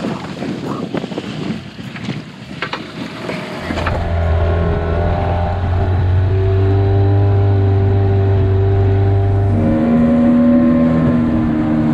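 A few knocks and rustles at first, then from about four seconds in a small outboard motor running steadily under way, pushing an inflatable dinghy. Its tone changes to a slightly different steady note near ten seconds in.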